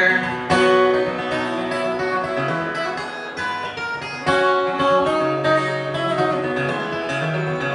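Acoustic guitar playing a short instrumental passage of a folk song, notes plucked and strummed with no singing.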